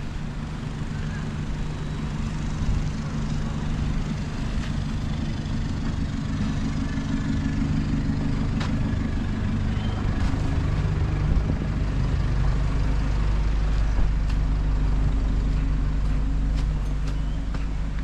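Motor vehicle engine running nearby, a steady low hum that grows louder about halfway through.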